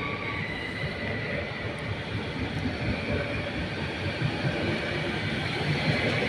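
Koleje Mazowieckie electric multiple unit rolling slowly along the platform, a steady running noise with a faint high whine.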